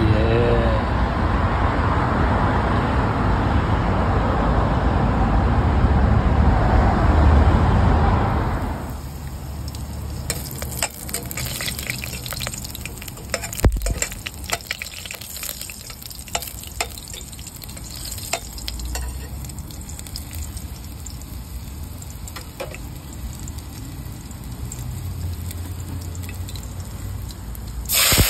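A loud, steady rushing noise for about the first eight seconds, which cuts off suddenly. Then frog meat frying in a pan: a quieter sizzle with scattered crackles and pops, busiest a few seconds after the change.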